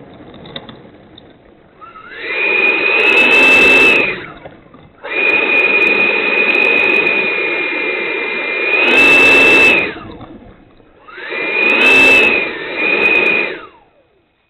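Electric ducted fan of a Freewing 90 mm F-15 RC jet spooling up and back down in three bursts of a high whine, the middle one the longest at about five seconds; the throttle is being blipped while the model taxis.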